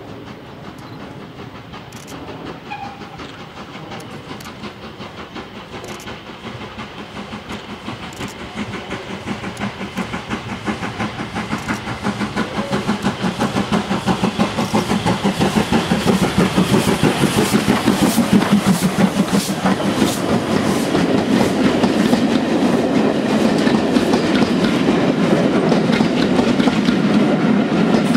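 Steam locomotive, plausibly Southern U class 2-6-0 no. 1638, approaching with its exhaust beating in a rapid rhythm that grows steadily louder. It passes close by at about halfway, and its coaches follow with wheels clicking over the rail joints.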